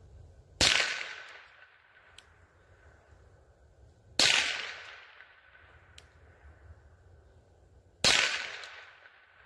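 Three single shots from a Rossi RS22 semi-automatic .22 LR rifle, each sharp crack followed by a fading echo. The shots come about three and a half to four seconds apart.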